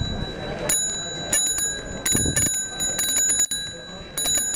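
Bicycle bell rung over and over in quick double "ting ting" strikes, each leaving a clear high ringing tone that hangs on between strikes. Another pair of rings comes near the end.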